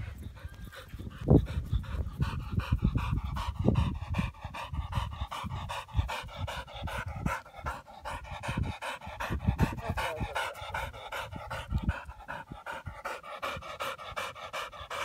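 A yellow Labrador retriever panting hard close by, with a ball held in its mouth, out of breath from running after it. There are some low thumps in the first half.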